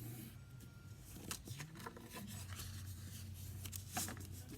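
Faint rustling and light scraping of cardstock being handled and scored, with a few soft ticks.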